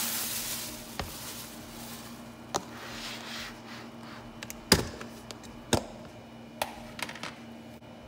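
Plastic crinkling at first, then a series of sharp clicks and snaps as a snap-on plastic lid is pried off a plastic food storage container, the loudest snap about halfway through.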